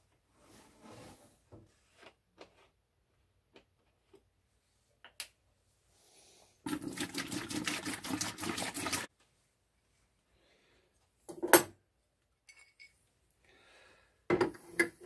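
Evapo-Rust rust remover poured from a plastic gallon jug into a plastic bucket, the liquid splashing in for about two and a half seconds after a few small handling clicks. Later comes a sharp knock, and near the end a short cluster of louder knocks and clatter.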